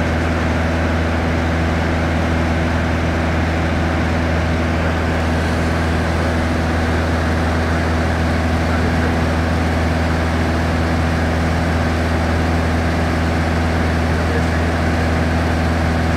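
Light touring aircraft's engine and propeller running at a steady cruise setting, heard inside the cabin as a loud, even drone with a deep low hum.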